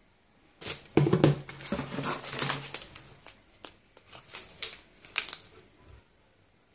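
Foil protein-powder sample sachets crinkling and rustling as a hand picks up and shuffles a bundle of them, in quick uneven bursts, loudest about a second in and again near the end.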